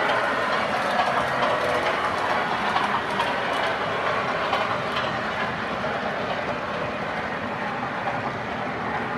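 Model passenger train running along its track: the steady rolling noise of metal wheels on model rails.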